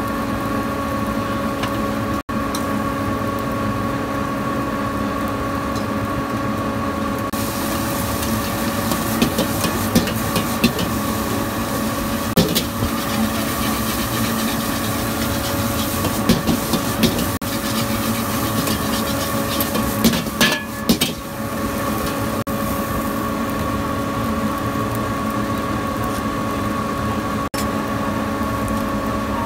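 Metal spatula scraping and clanking against a wok as rice is stir-fried, with the strokes coming thickest in the middle. Under it runs a steady mechanical hum.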